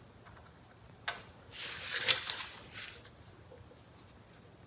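Handling noises from working on a steering wheel assembly: a single click about a second in, then a short rustle with a couple of light ticks.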